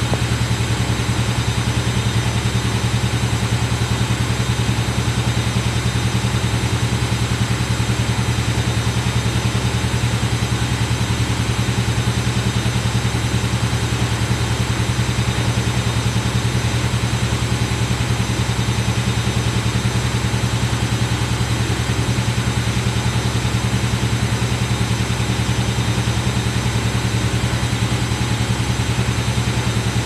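Front-loading washing machine running, a steady low motor hum with a fast, even pulse that does not change.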